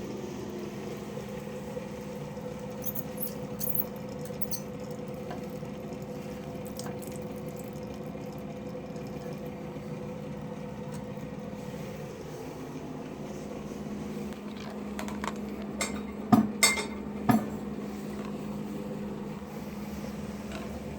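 Water running at a leaking faucet with a steady hum, and a few sharp clinks, the loudest three close together about three quarters of the way through.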